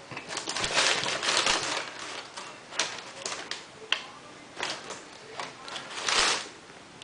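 Tissue paper rustling and crinkling as a sneaker is handled in its box, in a run of short bursts, the loudest in the first two seconds and again about six seconds in, with a sharp click about four seconds in.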